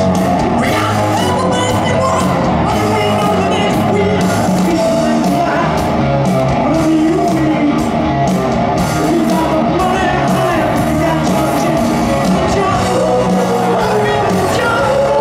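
Live hard rock band playing loud, with electric guitars and a steady drum beat under a male lead singer's voice.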